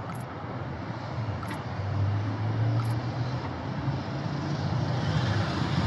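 Road traffic: a vehicle's engine rumble grows louder from about two seconds in, over a steady traffic hum.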